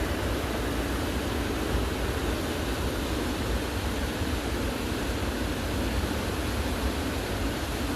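Steady, even rushing noise with a low rumble underneath.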